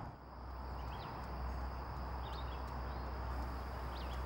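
Outdoor pond ambience: a steady low hum and a thin steady high whine, with three or four short, high, pitch-bending chirps spaced about a second apart.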